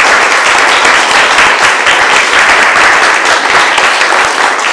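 Audience applauding: many hands clapping in a dense, loud, steady patter.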